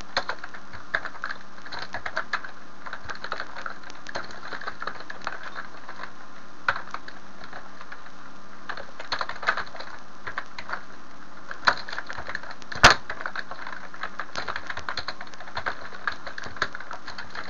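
Computer keyboard typing in uneven runs of keystrokes, thinning out for a couple of seconds midway, with one sharper, louder click about thirteen seconds in.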